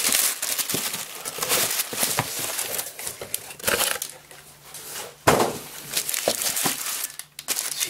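Paper wrapping and a cardboard box being handled, rustling and crinkling in short bursts, with one sharp thump a little past the middle.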